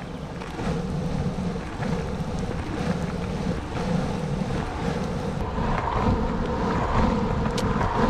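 Longboard wheels rolling over pavement: a steady rumble with a faint humming tone that grows stronger about halfway through, and wind buffeting the microphone.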